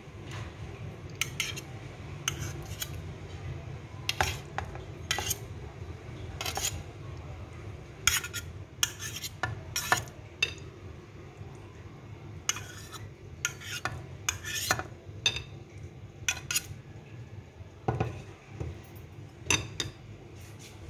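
Knife clinking and scraping against bowls as cut jelly cubes are pushed out into a glass trifle dish: irregular sharp clinks, several in quick succession at times.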